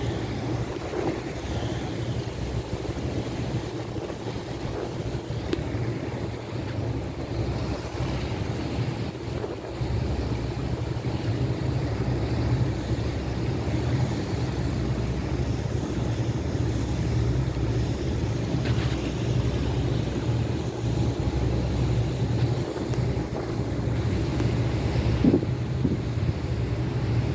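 Steady low drone of a boat's engine, with wind blowing on the microphone and the rush of water.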